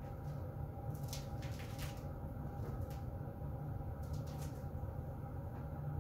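Heater vent blowing: a steady low rush of air with a faint constant hum. A few light clicks sound about one to two seconds in and again about four seconds in.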